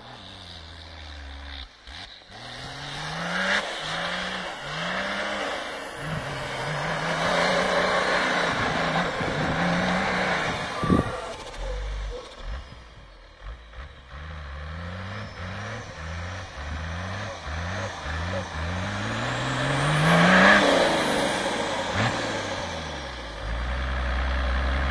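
4x4 SUV engine revving up and down repeatedly while driving through deep snow, each rise in pitch followed by a drop, with a high whine following the revs. It is loudest about twenty seconds in, then settles to a steady low idle near the end.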